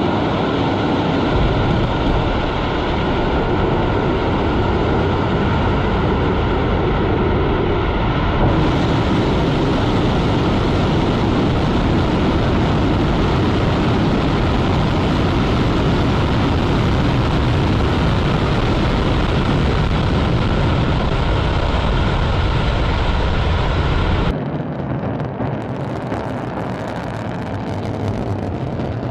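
Soyuz-2.1b rocket's kerosene-oxygen first-stage engines firing through liftoff and climb-out: a loud, continuous rumble heavy in the low end. About 24 seconds in it drops to a quieter, thinner rumble.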